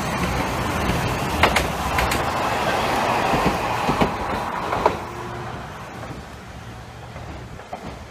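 Hankai Tramway streetcar running on its track, wheels clacking sharply over rail joints a few times. The running noise then fades over the last few seconds as the tram moves away.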